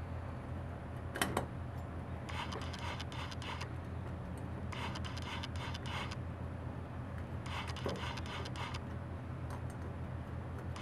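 Piston rings scraping and rubbing against the bore of a new GY6 150cc cylinder as the piston is pushed and tilted into it by hand, in three short bursts of rubbing, with a sharp click a little over a second in. A steady low hum runs underneath.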